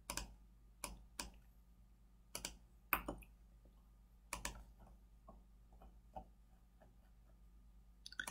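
Computer mouse clicking, about eight single clicks spread unevenly with a couple close together, over a faint steady low hum.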